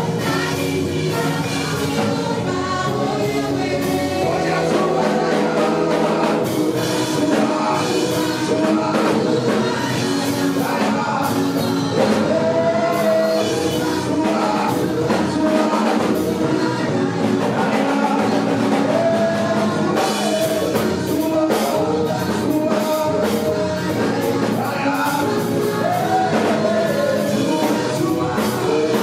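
Gospel praise-and-worship song: voices singing together over a band with drums, at a steady loud level.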